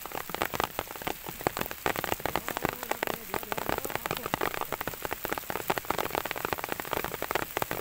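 Rain falling hard, with a dense, uneven stream of drops striking close by.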